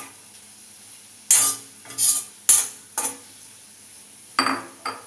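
A spoon stirring mushrooms in a pan of melted butter, scraping and knocking against the pan about six times at uneven intervals, over a faint sizzle.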